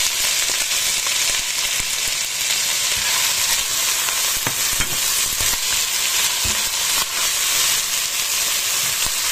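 Chopped onions sizzling steadily in hot olive oil in a cast-iron pot. They are stirred with a silicone spatula, which gives a few soft knocks against the pot.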